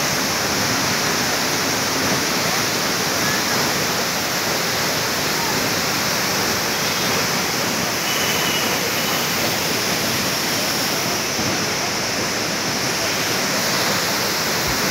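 A waterfall pouring steadily into its pool: a constant, even rush of falling water.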